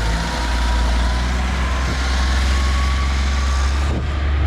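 Concrete mixer truck's heavy diesel engine running, a steady low drone with a faint whine that slowly rises in pitch.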